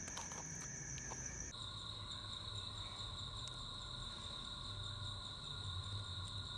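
A steady chorus of crickets: several continuous high-pitched trills that hold their pitch. About a second and a half in, the set of pitches changes abruptly. A few faint clicks come in the first second.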